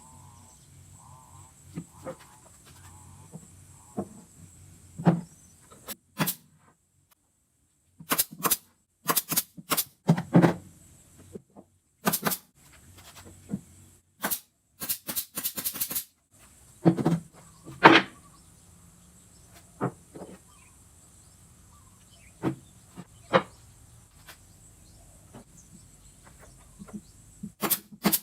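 Irregular sharp clicks and knocks, some coming in quick runs, broken by brief spells of complete silence.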